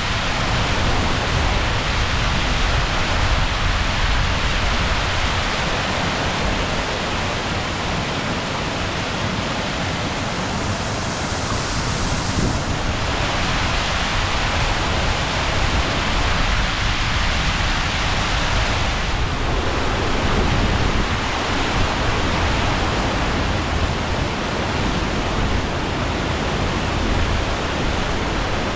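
Muddy floodwater rushing along a stony channel: a loud, steady rushing noise that swells a little at times.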